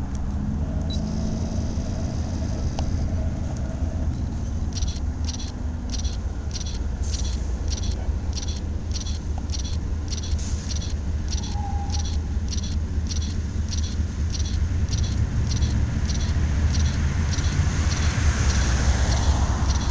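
Welded rail freight train rolling past: a steady low rumble with a regular high clicking, about two clicks a second, which resumes about five seconds in after a short gap.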